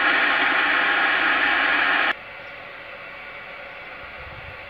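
Superstar SS-3900 Black CB radio hissing with static through its speaker, an open channel with no station on it. The hiss cuts off suddenly about two seconds in, leaving only a much quieter steady hiss.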